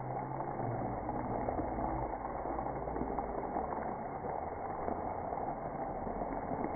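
Splash pad water spray heard as a steady, dull rushing, slowed down and deepened by slow-motion playback, with a few faint drawn-out low tones.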